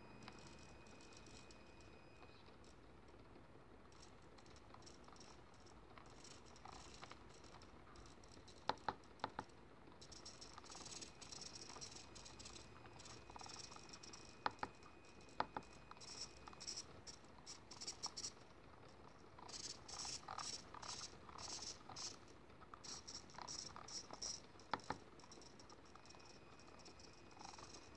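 Hitec HS-422 analog RC servo whirring in short gear-driven bursts as its arm is driven to new positions, with a few sharp clicks from the tester's rotary knobs. A faint steady high whine comes and goes.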